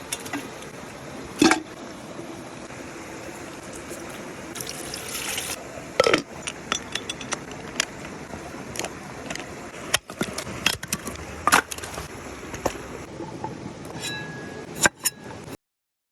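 Cooking sounds: a steady hiss of food cooking, with scattered clinks and knocks of utensils against a pot. The sound cuts off suddenly near the end.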